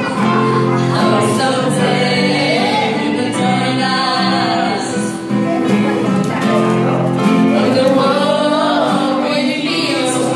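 A live song: a woman and a man singing into a microphone, backed by guitar and keyboard playing held chords.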